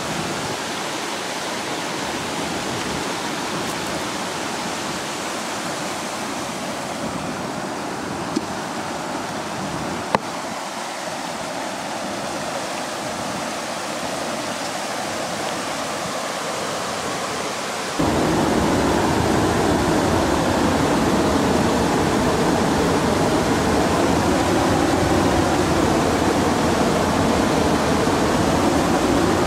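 Steady rush of water pouring over a low river weir, getting louder and fuller about eighteen seconds in. Two short clicks stand out near the middle.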